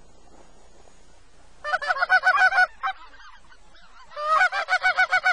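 Goose honking in two quick runs of about a second each, around eight honks a second; the first begins under two seconds in and the second a little past four seconds.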